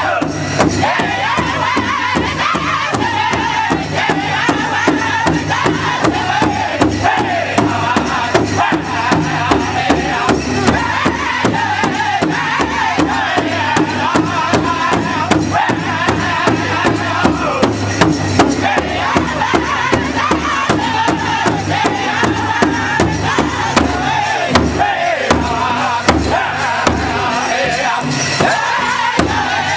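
Powwow big drum, one large hide-headed drum struck in unison by several drummers in a steady, even beat, with the same men singing together over it.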